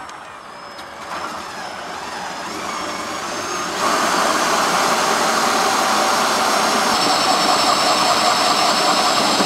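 Cordless drill driving an 83 mm hole saw through a Land Rover Discovery's front wing panel: a steady grinding of the saw teeth cutting the metal, which grows louder about four seconds in as the saw bites fully.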